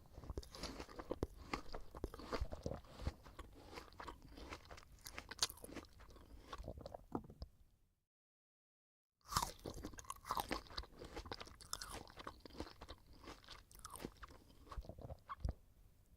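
Apple being chewed close to the mic: wet, crunchy chewing, full of small cracks and clicks. It fades out about eight seconds in, and after a second of silence a new bout starts with a sharp crunch.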